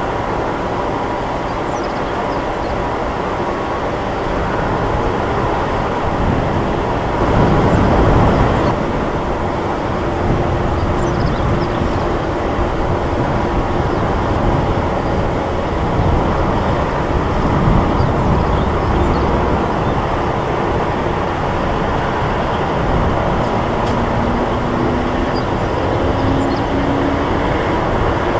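Boeing 747-400 freighter's four turbofan engines at taxi power, a steady jet rumble with a faint whine, swelling louder for a moment about eight seconds in.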